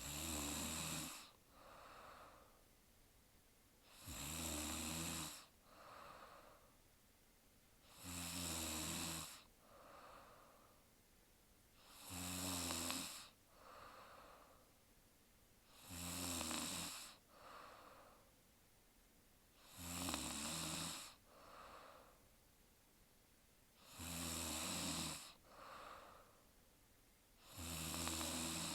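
A young woman snoring in her sleep: a rattling snore about every four seconds, eight in all, each followed by a softer breath.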